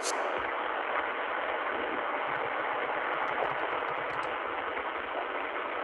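Steady hiss from an open voice-chat microphone, with a run of light computer-keyboard typing clicks in the middle.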